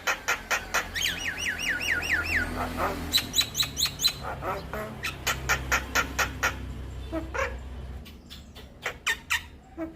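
Javan myna (jalak kebo) singing: a fast run of sharp clicking notes, with a string of about eight quick downslurred whistles in the first couple of seconds. The song thins out briefly near the end.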